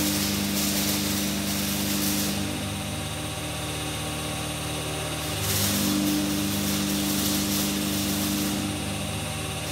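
Hydraulic power pack for a crusher door, its electric motor and pump running steadily. Twice, for about three seconds each time, the pump note rises and a hiss of oil flow comes in: the pump is working under load as the door cylinders are driven.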